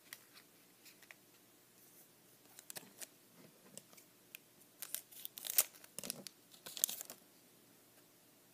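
Wrapper of a trading card pack being torn open and crinkled: a run of sharp crackling rips and crinkles that is densest and loudest from about five to seven seconds in.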